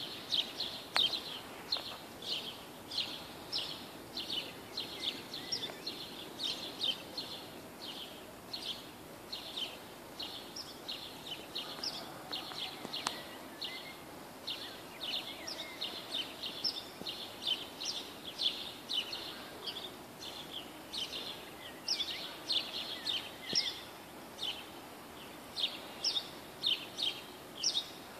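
Small birds chirping over and over, short sharp chirps about two or three a second, over a faint low rumble of a slow-moving train.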